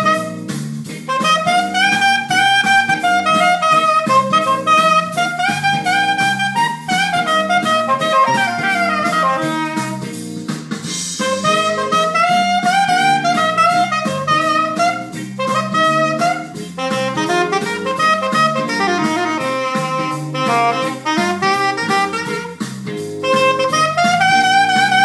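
Soprano saxophone playing a melody in phrases of rising and falling runs, over a backing with bass and a steady drum beat.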